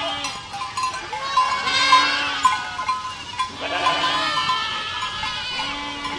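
Several goats bleating, their calls overlapping at different pitches, one after another.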